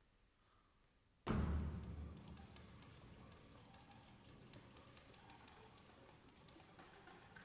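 Contemporary chamber ensemble of flute, clarinet, bassoon, horn, piano, violin and cello. The piece opens with a sudden loud, deep attack about a second in that dies away over a second or so, then goes on as a quiet texture of soft taps and clicks over held notes.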